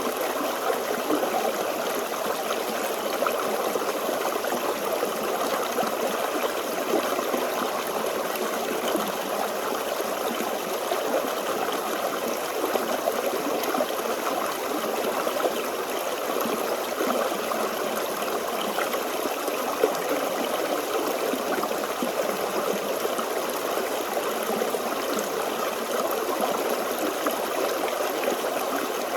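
Small forest stream flowing steadily over stones, a continuous babbling and trickling.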